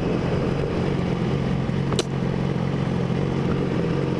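Motorcycle engine running steadily at cruise, heard from on the bike, with one sharp click about two seconds in.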